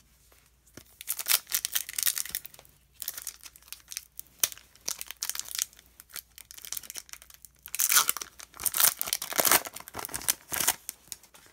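Wrapper of a Panini Excalibur basketball trading card pack being torn open and crinkled by hand. The crackling comes in two bouts, one starting about a second in and a louder one about eight seconds in.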